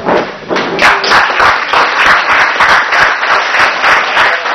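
A room of dinner guests clapping, in a fairly even rhythm of about five claps a second, starting just under a second in and easing off near the end.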